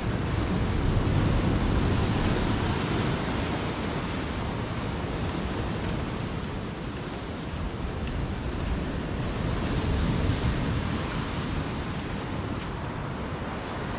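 Ocean surf washing and breaking, with wind blowing on the microphone; the wash swells louder twice.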